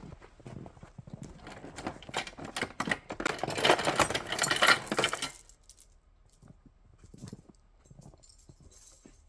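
Footsteps and rustling through brush, a string of crunches and snaps. A louder stretch of crackling and rustling peaks about three to five seconds in and stops suddenly. After that there are only a few faint clicks.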